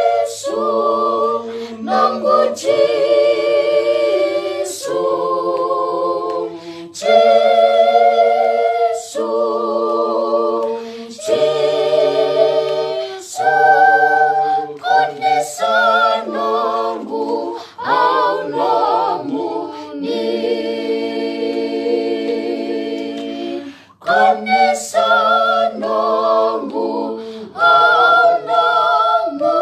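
A small family choir of children and adults singing a Fijian song a cappella, several voices together in sustained phrases with short breaks between them.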